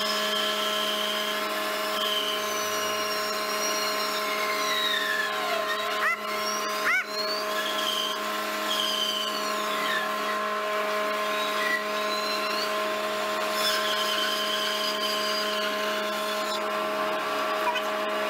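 Belt-driven bandsaw running with a steady motor hum and whine while its blade cuts into a round log. A high squeal rises and falls in pitch as the wood is fed and turned, and two brief sharp sounds come about six and seven seconds in.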